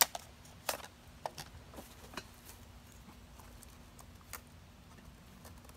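Clicks and knocks of an AR-style rifle being handled on a shooting bench: one sharp click at the very start, then a handful of lighter metallic clicks and taps over the next few seconds.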